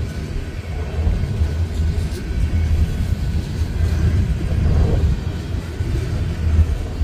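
Empty coal gondola cars of a freight train rolling past close by, a steady low rumble of steel wheels on the rails.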